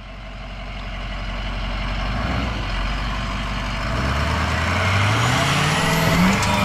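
Truck engine working hard under load as the truck tries to climb a slope. It grows steadily louder and revs higher, its pitch rising from about four seconds in. The truck is struggling and fails to get up.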